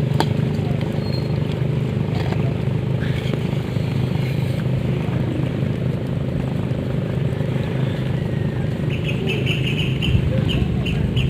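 A small engine running steadily at an even, unchanging speed, a low hum with no revving. A few short high chirps come in near the end.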